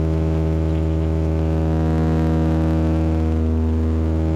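Bombardier Dash 8-100 turboprop engine and propeller heard from inside the cabin in flight: a steady deep drone made of a stack of even, unchanging tones.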